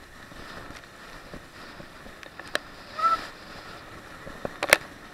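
Rushing wind and water spray on a towed banana boat, picked up by an action camera's microphone. A short cry comes a little after three seconds in. Sharp knocks come at about two and a half seconds and, loudest, near the end.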